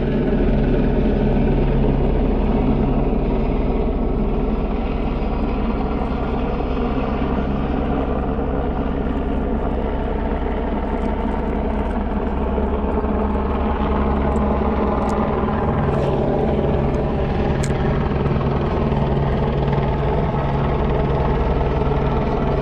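Helicopter flying low overhead, its rotor beating fast and evenly over a steady engine whine. Loud and unbroken, with the pitch drifting slightly about two thirds of the way through.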